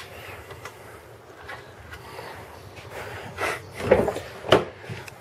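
Plastic stereo install-kit brackets and parts being handled and fitted, with a sharp click at the start and three louder knocks about three and a half to four and a half seconds in.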